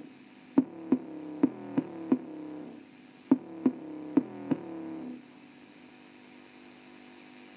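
Bass test track playing through a small CRT TV's built-in speaker: a beat of sharp knocks, about three a second, over a steady low note, with no deep bass coming through. The note and beat cut off about five seconds in, leaving a faint hum.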